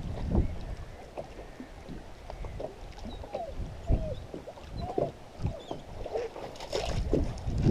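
Water gurgling and splashing around a small rowboat, in short bubbly blips, with scattered low knocks against the hull.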